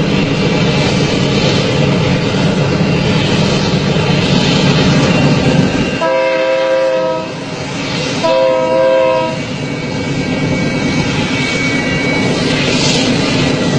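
Train running with a steady rumble, and its horn sounding two blasts about halfway through, the first a little longer than the second.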